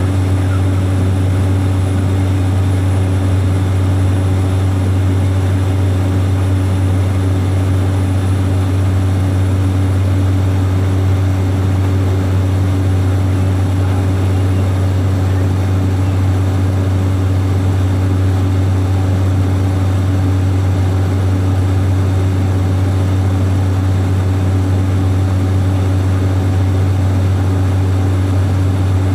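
Small propeller aircraft in flight, heard from inside the cabin: a loud, steady engine and propeller drone with a strong low hum that does not change.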